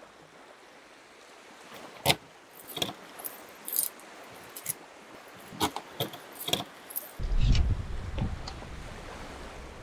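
Keys jangling and the lock of a camper van's outside storage hatch clicking as it is unlocked and opened: a run of sharp clicks and rattles. From about seven seconds in there is a low rumble.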